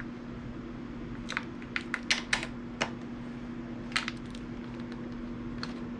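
Scattered light clicks and taps, about a dozen at irregular spacing and mostly in the first half, over a steady low hum.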